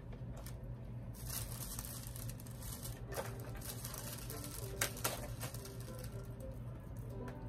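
Thin plastic shopping bag rustling and crinkling in bursts while a boxed doll is handled, with a couple of sharp clicks near the middle.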